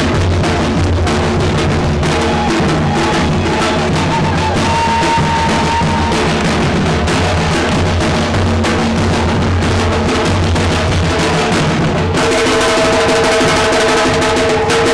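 Drum ensemble of snare drums and larger drums played with sticks, beating a steady rhythm. About twelve seconds in, the sound changes abruptly and several held notes sound over the drumming.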